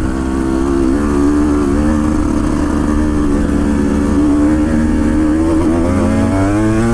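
Off-road motorcycle engine running at low, fairly steady revs on a steep descent, picking up pitch near the end.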